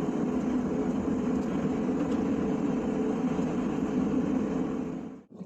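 A vehicle driving along at a steady speed, with an even drone of engine and road noise that cuts off suddenly near the end.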